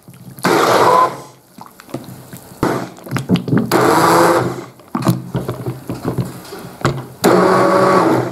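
Hand-held stick blender pureeing soft peeled boiled tomatoes, run in three short bursts of about a second each, with scattered clicks and knocks in between.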